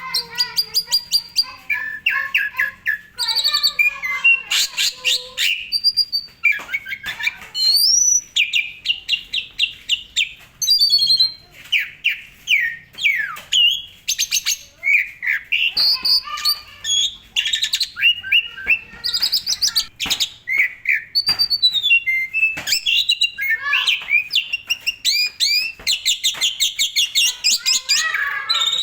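Asian pied starling (jalak suren) singing a long, varied song without pause: fast runs of repeated chirps, clear rising and falling whistles and harsh scratchy notes, in the busy, constantly changing style that bird keepers call 'gacor full isian'.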